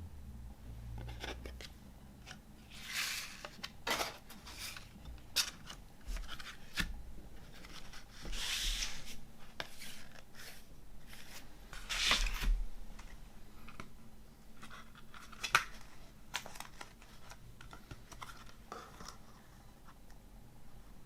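CD packaging being handled: three longer brushing swishes of paper or card, with scattered light clicks and taps between them.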